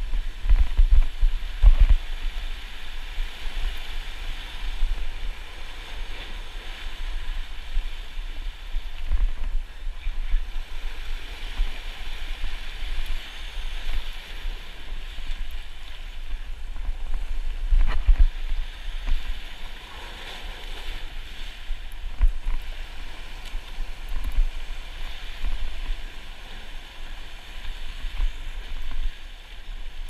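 Ocean surf washing and foaming over shoreline rocks in a steady hiss, with wind gusting on the microphone in repeated low rumbles.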